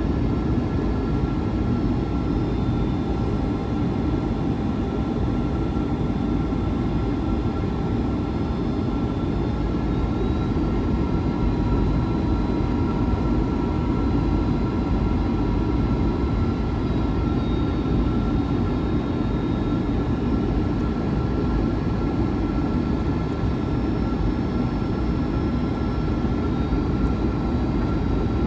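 Jet airliner cabin noise on approach: the engines and rushing air make a steady roar, with a constant thin whine on top.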